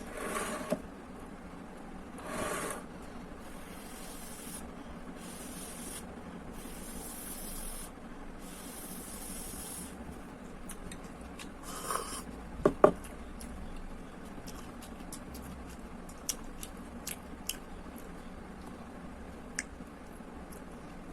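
Someone eating instant tom yam noodles: a run of short slurps and swishes, then a couple of sharp clicks a little under thirteen seconds in, followed by small scattered clicks.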